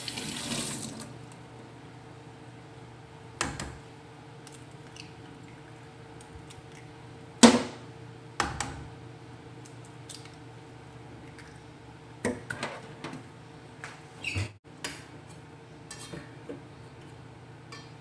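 An egg tapped against the rim of a bowl and cracked open by hand, heard as several sharp knocks and clinks, the loudest about halfway through. A brief hiss at the start and a steady low hum underneath.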